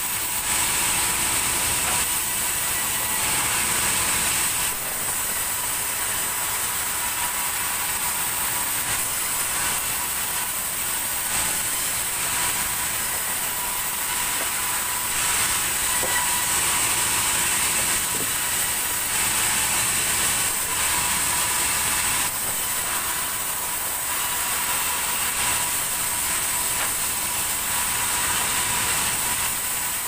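Sawmill vertical band saw running and cutting through a large log: a steady mechanical run with a strong high hiss of the blade in the wood and a thin steady whine. The level rises and falls slightly every few seconds as the cut goes on.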